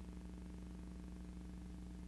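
Steady electrical hum with a fast, even flutter running through it: the background noise of a silent film's transfer, not sound from anything in the picture.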